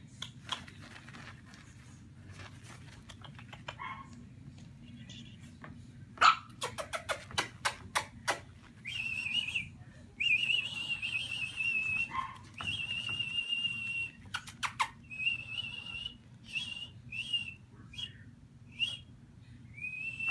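A quick run of sharp clicks, then a person whistling one steady high note in repeated held stretches, the stretches growing shorter toward the end.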